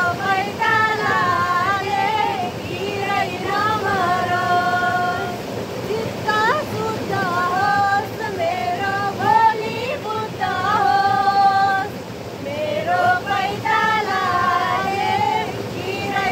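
A woman's voice singing a melody with long held notes, over the steady rush of river water.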